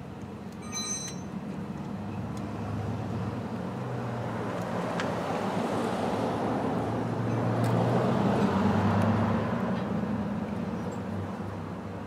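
A vehicle passing by: a low rumble that swells, is loudest about eight to nine seconds in, then fades. There is a short high chirp about a second in and a few faint clicks.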